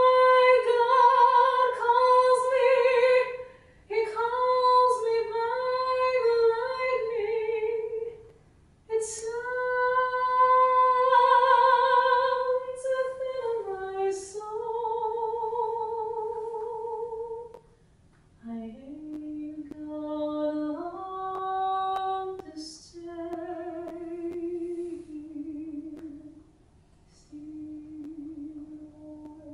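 A woman singing unaccompanied: slow phrases of long held notes with vibrato, separated by short breaths. In the second half the melody drops lower and is sung more quietly.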